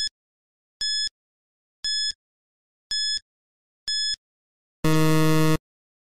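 Quiz countdown-timer sound effect: short electronic beeps about once a second as the seconds run out, then near the end a longer, louder low buzzer marking that time is up.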